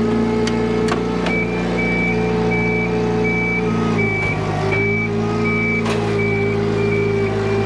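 A vehicle or machine engine running steadily, its note dipping briefly midway, while a reversing alarm beeps over it, starting about a second in and repeating about three times every two seconds.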